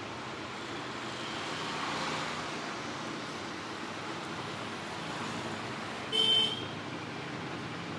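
Steady road traffic noise, with one short, loud beep about six seconds in.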